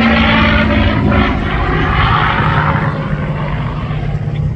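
P-51D Mustang's Packard-built Merlin V-12 engine running hard as the fighter passes, its pitch drifting slowly down and the sound growing fainter after about three seconds.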